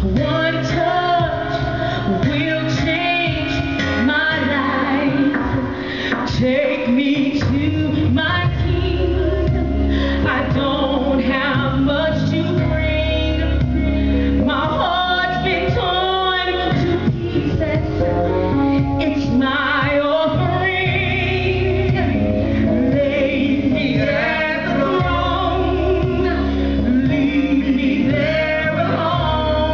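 A woman singing into a microphone over instrumental accompaniment, amplified through a sound system.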